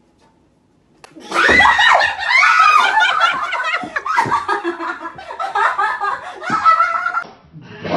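Women laughing hard and loud, starting about a second in and running for about six seconds with high, up-and-down peals.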